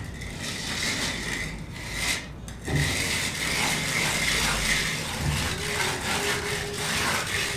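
Timber being worked with a tool: a continuous rasping noise that breaks off briefly about two and a half seconds in, then comes back louder.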